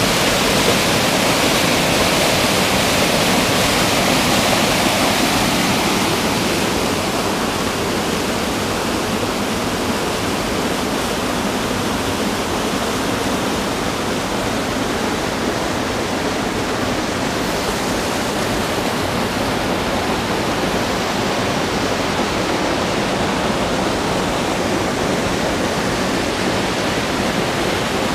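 Waterfall cascading over rock, a steady rush of water that eases slightly after about six seconds.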